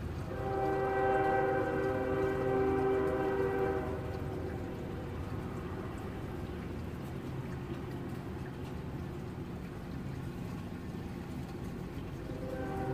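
Train horn sounding a long blast of several steady tones for about three and a half seconds, then starting again near the end, over steady rainfall.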